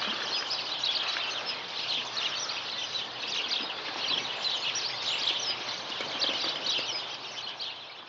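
Many small birds chirping and twittering steadily, with scattered soft knocks and rustles as a blue eared pheasant pecks and tugs at a glove in the snow. The sound fades out near the end.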